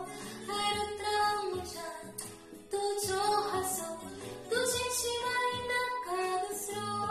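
A young woman singing solo over instrumental backing music, her voice gliding between notes and holding some long ones.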